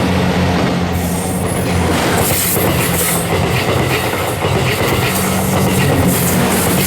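JR West 87 series diesel train (Twilight Express Mizukaze) passing close by: a steady engine hum under the rumble and clatter of its wheels over the rails.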